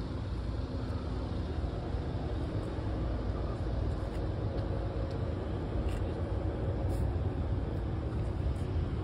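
Steady low rumble of a motorcycle on the move, engine and wind noise mixed, with no change in pace.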